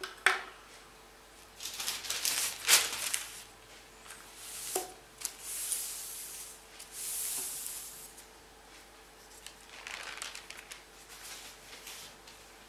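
Sheets of calligraphy paper rustling and crinkling as they are handled and smoothed flat on the desk, in three bouts. It begins with a light knock, the brush being set down on its rest.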